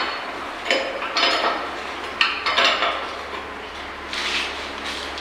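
Irregular metal clinks and knocks of tools and hardware being worked at a bolted steel pipe flange, about half a dozen sharp strikes over a few seconds, with a softer scrape near the end.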